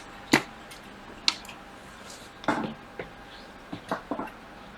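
Small handling sounds of phone repair work on a bench: a sharp click about a third of a second in, another about a second later, then a few soft scrapes and taps.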